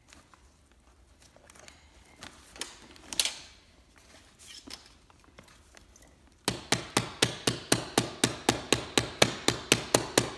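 Faint clicks and handling as a metal jib hank is fitted through a sail grommet. About six and a half seconds in, a mallet starts striking the hank in quick, even taps, about five or six a second, hammering it closed so it can't come out.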